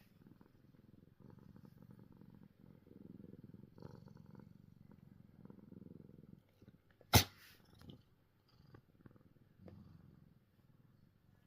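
A domestic cat purring steadily, broken about seven seconds in by a single sudden, loud sneeze.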